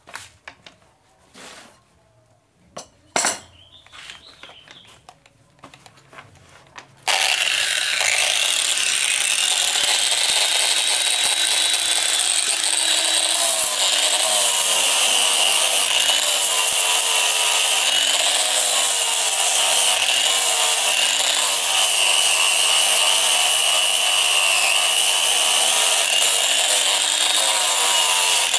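A few knocks and clicks, then about seven seconds in an electric angle grinder with a sanding pad starts abruptly. It runs on steadily with a high whine, its pitch wavering slightly as the pad is worked along a leaf-spring-steel throwing-knife blade.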